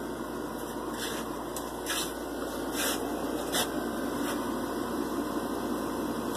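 Window air conditioner running with a steady whoosh of fan air; the occupant says the unit is not working to cool the room. A few faint clicks come through over it.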